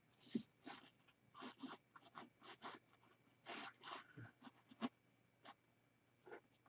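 Faint, irregular rustling and crinkling of artificial flocked evergreen branches and plastic candy cane picks as they are pushed around and repositioned in a wreath, with one sharper tick nearly five seconds in.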